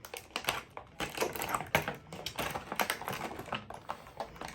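Quick, irregular clicks and rattles of hard plastic parts of a cordless combi drill kit being handled, taken apart and fitted back together.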